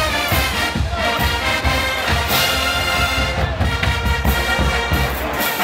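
College marching band playing a brass tune over a steady drum beat.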